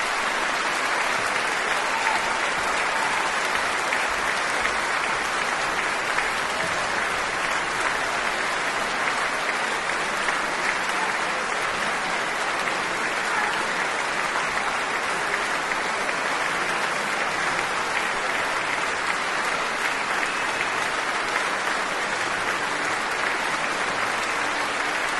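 A large audience applauding, a steady dense clapping that carries on without a break.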